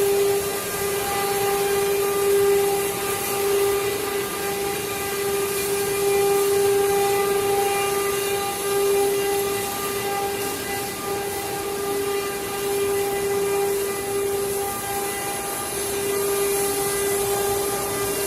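CNC wood statue-carving router's spindle running with a steady high whine, over a constant hiss.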